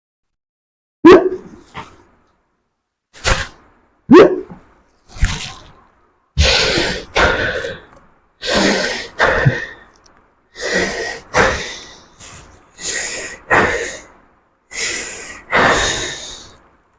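A man hiccuping four times in short, sharp hics, then breathing hard in and out about five times, each a noisy paired in-and-out breath, into a plastic bag as a hiccup remedy.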